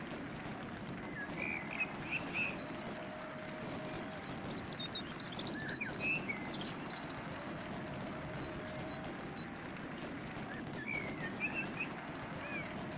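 Birds singing and twittering in quick phrases that slide in pitch, over an evenly repeated high chirp about twice a second.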